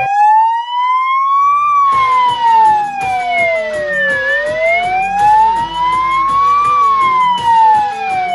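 Fire truck siren sounding a slow wail, its pitch rising and falling smoothly, one full up-and-down cycle about every five seconds.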